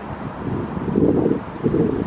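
Wind buffeting the camera's microphone: low, gusty noise that swells hard about a second in and again near the end.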